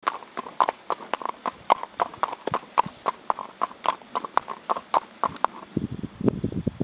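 A quarter horse's hooves clip-clopping on a tarmac lane in a quick, even rhythm of sharp clicks, about five a second. Near the end the clatter stops and a duller, lower sound takes over.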